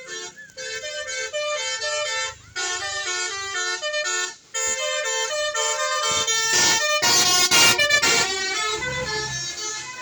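Indonesian bus 'telolet basuri' musical air horn playing a tune of quick stepped notes, breaking off briefly about two and a half seconds in and again just after four seconds. A loud rushing noise swells over the notes from about six and a half to eight seconds in.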